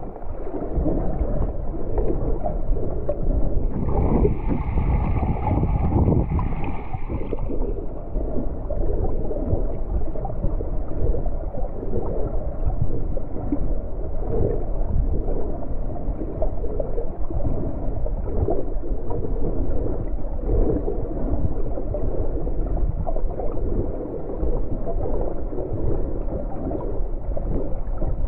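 Muffled underwater noise picked up by a submerged camera: a steady, dull rumble and gurgle of moving water as the snorkeler swims, with a brief higher hiss about four to seven seconds in.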